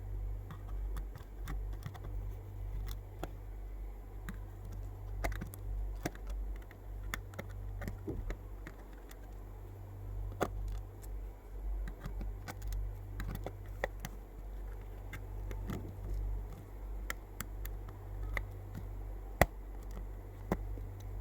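Irregular small clicks and taps of a thin metal pry tool working a tiny plastic key retainer out from under a laptop keyboard key; the clip is stuck. One sharper click comes near the end, over a steady low hum.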